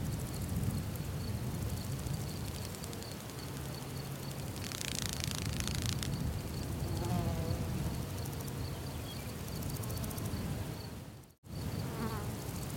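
Outdoor wildlife ambience: a steady low rumble under a faint, even insect ticking, with a fly buzzing close by for about a second and a half around five seconds in. A few faint chirping calls follow, and the sound drops out to silence for an instant near the end.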